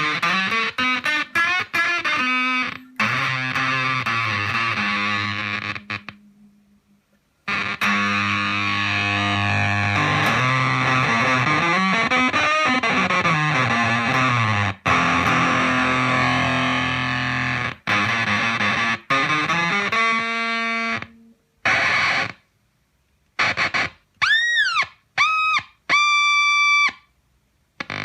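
Electric guitar, a Gibson SG on its neck pickup, played through a Zvex Fuzz Factory fuzz pedal into a Roland Cube 30 amp: thick fuzzed notes with sliding pitch sweeps, broken by two short pauses. Near the end, a run of short, clipped squealing tones that bend up and down in pitch.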